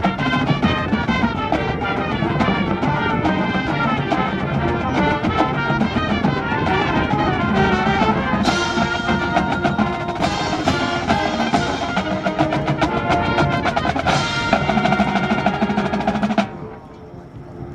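Marching band with drumline playing: rapid snare and percussion strokes under brass, with fuller held brass chords joining about halfway through. The music cuts off abruptly about a second before the end.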